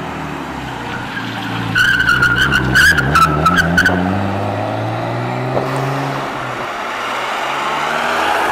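R33 Nissan Skyline's straight-six pulling away under throttle, with about two seconds of chirping tyre squeal as it accelerates. Near the end a Ferrari 550 Maranello's V12 rises as it approaches.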